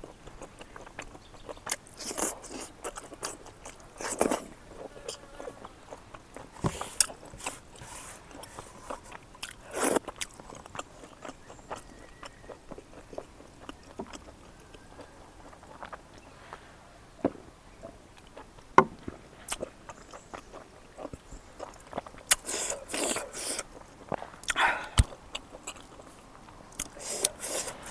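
Close-up chewing and biting of a mouthful of food eaten by hand, in scattered short clicks and wet mouth sounds, with the scrape of fingers gathering leftovers across a wooden plate.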